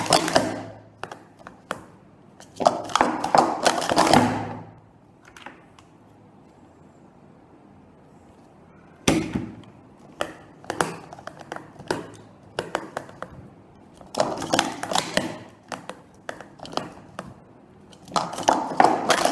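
Speed Stacks plastic sport-stacking cups clattering in rapid runs of sharp clicks as they are stacked up and down at speed, slapped together and set onto the mat. The runs come in several bursts, with a quiet stretch of a few seconds before the middle.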